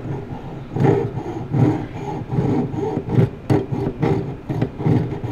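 Jeweler's saw with a fine 4/0 blade cutting through a wire coil on a wooden dowel, in even back-and-forth strokes a little under a second apart. It is cutting jump rings off the coil.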